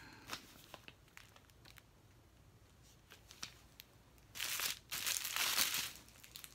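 Small plastic bags of diamond painting drills crinkling as they are handled, with scattered light ticks at first, then two louder bursts of crinkling a little after four seconds in.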